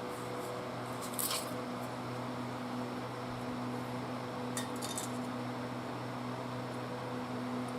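A few light metallic clicks and clinks, about a second in and again near the middle, as tools or small engine parts are handled during engine disassembly. A steady hum runs underneath.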